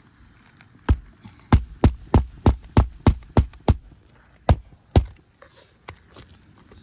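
Hammer driving roofing nails into asphalt shingles: a quick run of about nine sharp strikes, roughly three a second, then two more blows.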